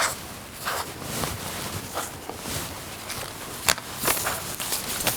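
Scissors trimming fabric on foundation paper: a handful of irregular sharp snips, with paper and fabric rustling between them.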